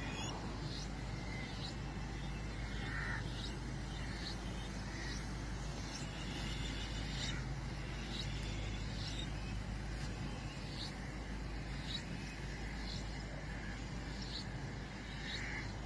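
Outdoor street ambience: a steady low rumble and hiss, with short high chirps about once a second.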